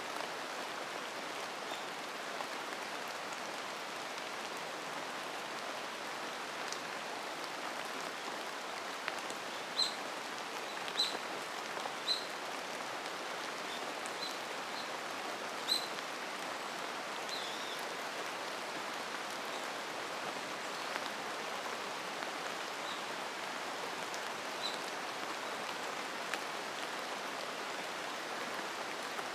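Steady rain falling in a mountain forest, an even hiss. Occasional sharp high taps stand out, several close together around the middle.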